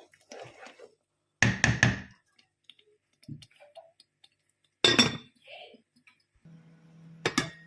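Kitchen utensils knocking and clinking against pots and dishes while cooking: a quick cluster of knocks about a second and a half in, another sharp clink around five seconds, and one more near the end.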